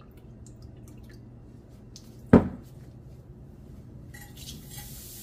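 Stainless steel measuring cups handled over a steel wok: a single sharp metallic clink about two seconds in, among faint small ticks. Near the end a faint hiss begins as the vinegar is tipped onto the baking soda in the wok.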